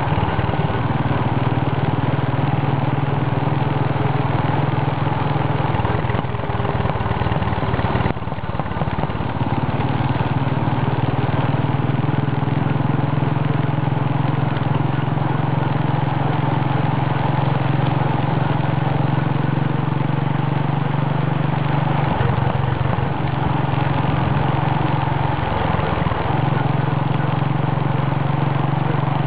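Royal Enfield motorcycle engine running steadily under way, with a rush of wind and road noise. The low engine note drops away briefly about six seconds in, and again twice past twenty seconds.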